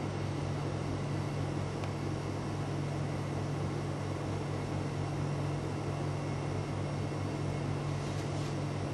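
Steady low hum with an even hiss: room tone.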